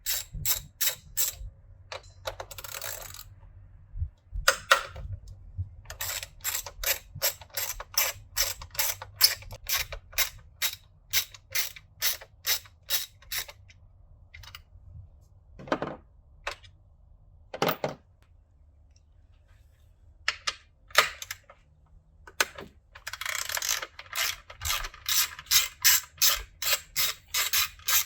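Ratchet wrench with a 12mm socket clicking as it loosens the top-mount intercooler hold-down bolts. The clicks come in runs of quick, even strokes, about three a second, broken by short pauses.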